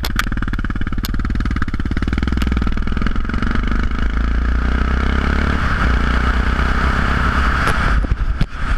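Yamaha XT 660X single-cylinder four-stroke engine breathing through Leo Vince aftermarket exhausts, accelerating away out of a roundabout with its note climbing. Wind noise on the microphone builds as speed rises, and the engine note drops briefly near the end.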